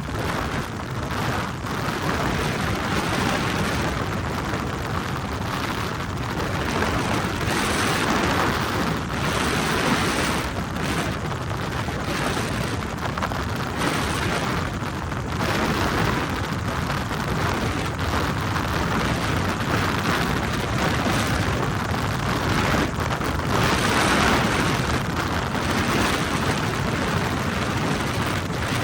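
Helicopter in flight: a steady, loud rush of engine and rotor noise that swells and eases slightly without letting up.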